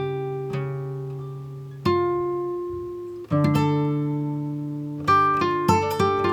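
Background music: plucked string chords, each struck and left to ring out and fade, with a quicker run of notes near the end.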